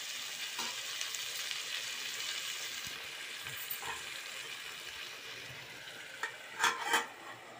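Chopped tomatoes and onions sizzling in oil in a steel kadai, stirred at first with a steel spoon. Near the end a steel lid clanks down onto the pan twice, and the sizzling drops lower once the pan is covered.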